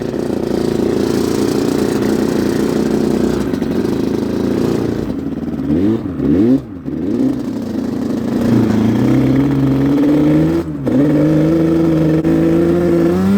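Yamaha Banshee 350's twin-cylinder two-stroke engine, running steadily, then revved up and down quickly a few times about six seconds in, then climbing in pitch under acceleration, with a brief drop in revs near eleven seconds before it climbs again.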